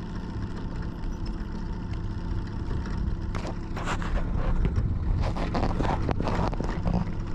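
Boat's outboard motor running steadily, with a series of knocks and rustles starting about three seconds in.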